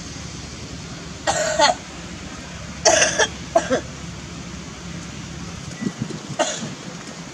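Four short coughs: one a little over a second in, two close together around three seconds, and a lighter one near six and a half seconds. A steady low hum runs underneath.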